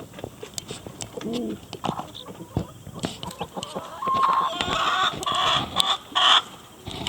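Chickens clucking and calling, with many small clicks and rustles; the calls grow louder and more frequent from about four seconds in.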